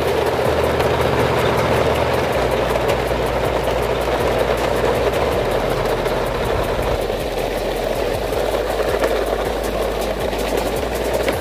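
A vehicle engine running steadily under a dense, rough rumble; its low drone shifts in pitch a couple of times.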